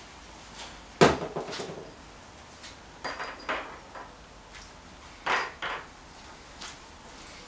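A cordless drill and screws are set down on a wooden picnic table top. There is one heavy knock about a second in, then lighter knocks and clicks, in pairs around three and five seconds in.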